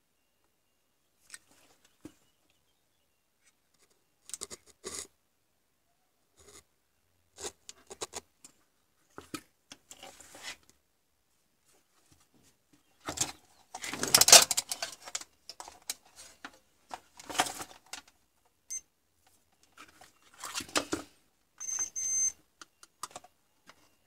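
Scattered clicks, taps and rustles of hands handling soldering tools and a circuit board on a cloth-covered bench, loudest and busiest about halfway through. A brief high-pitched beep comes near the end.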